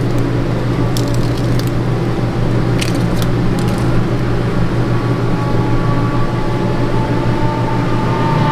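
A steady low mechanical hum fills the room. Over it come a few faint crackles and clicks, about a second in and again around three seconds in, from the backing being peeled off a small adhesive Velcro tab.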